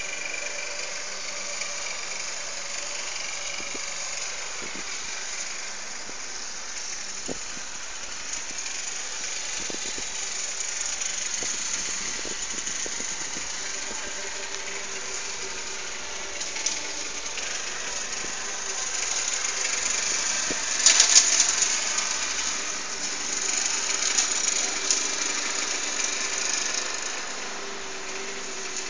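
Airliner passing overhead: a steady rushing engine drone with a faint tone that slowly falls in pitch, growing louder about two-thirds of the way through.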